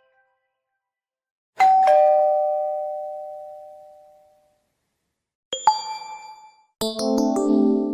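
Alcatel One Touch phone notification tones: after a short silence, a two-note ding-dong chime, high then lower, rings out slowly over about three seconds. A short bright chime follows just before six seconds in, and a quick multi-note jingle starts near the end.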